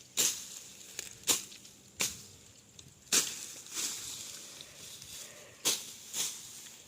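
A hand tool hacking at the ground or vegetation in repeated, irregular strokes, about seven sharp swishing hits, while clearing land for planting.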